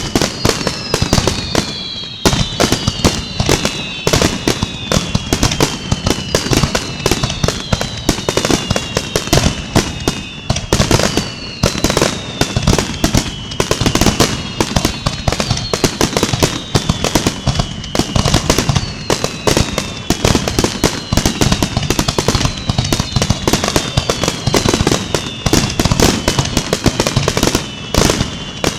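Fireworks display going off in a dense barrage: rapid, continuous bangs and crackles, with many overlapping whistles that fall in pitch.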